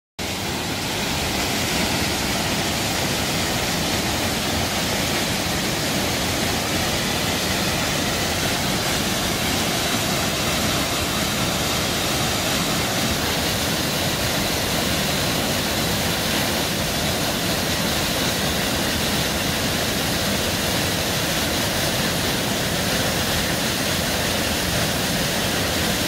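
Mountain waterfall rushing steadily as it plunges down a rock face into a deep pool: a constant, even roar of falling water.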